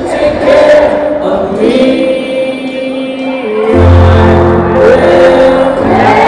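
Live concert music heard from the audience: held sung notes over sustained chords, with a deep bass note coming in a little before four seconds in and holding for about two seconds.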